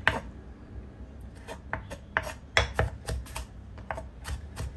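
Kitchen knife chopping ginger and spring onion on a bamboo cutting board: the blade knocks on the wood in irregular taps, about two or three a second.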